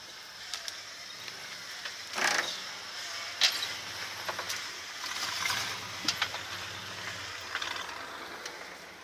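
Pickup truck crawling slowly over rough, rocky dirt, its engine humming low under the crunch and crackle of tyres rolling over gravel and debris. The loudest crunches come about two and three and a half seconds in.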